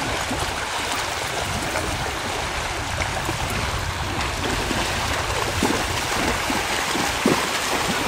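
Steady rush of lake water lapping and sloshing, with wind buffeting the microphone and a couple of small splashes near the end.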